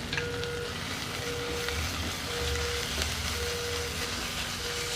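Spiced paste of ground thoothuvalai leaves and tomato sizzling in oil in a pan. A faint note of music sounds about once a second over it.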